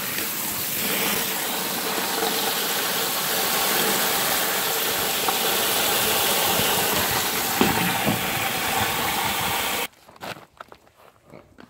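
Jet of water from a hose spraying into a cooler of ice, a steady loud hiss and splash that cuts off suddenly near the end. Faint crinkling of a bag follows.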